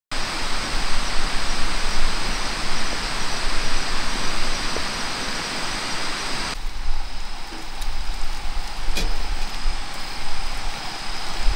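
Outdoor night ambience at a grassy campsite: a steady rushing noise, with a faint steady high insect trill running through. About six and a half seconds in, the rush drops away sharply, leaving the trill, a low rumble and a single light metal click of tongs.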